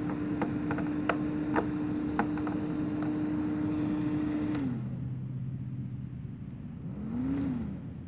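The electric fan motor inside a homemade air conditioner running with a steady hum, then winding down in pitch a little past halfway as it is switched off. A few light clicks come in the first two seconds, and a short tone rises and falls near the end.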